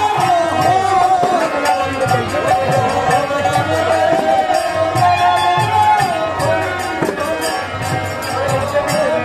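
Bengali Harinaam sankirtan music: a melody with gliding pitch over a steady beat of hand cymbals and drum.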